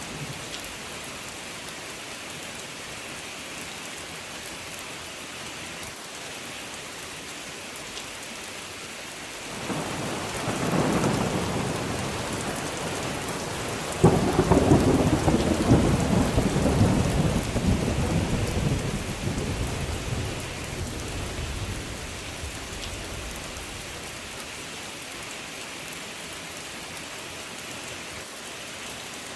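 Steady rain falling, with thunder rumbling twice: a rumble building about a third of the way in, then a louder crack about halfway through that rolls on for several seconds before dying away.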